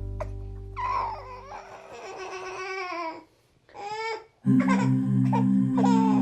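Baby crying and babbling sounds, with a few short falling whimpers, as the background music fades out; the music comes back in about four and a half seconds in.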